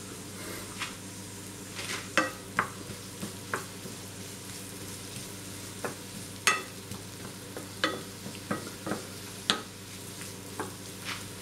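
Chestnut mushrooms and sliced onion sizzling in butter and oil in a frying pan, stirred with a wooden spatula that knocks and scrapes against the pan every second or so.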